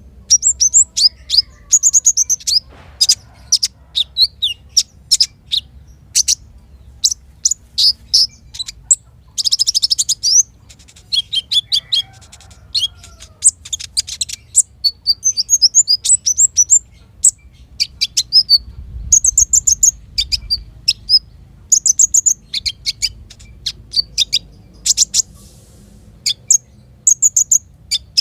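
A sunbird singing: rapid phrases of sharp, high-pitched chirps and short trills with brief pauses between them, one buzzier trill about ten seconds in.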